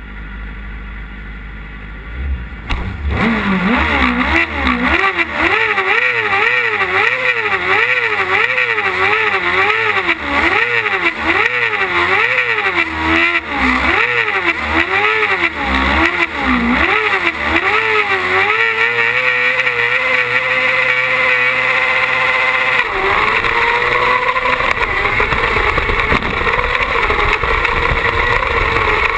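Carcross buggy's engine heard from onboard: a low idle at first, then from about three seconds repeated throttle blips with the revs rising and falling about once a second while the car sits on the start line. The revs are then held steady, and about two-thirds of the way through the note changes abruptly as the car launches and pulls away at high revs.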